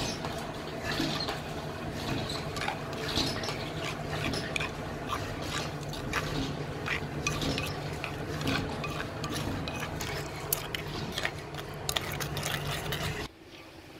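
A metal spoon stirring yogurt into ground radish chutney in a stone mortar: wet stirring with many irregular clicks and scrapes of the spoon against the stone. A steady low hum runs underneath, and the sound drops off abruptly shortly before the end.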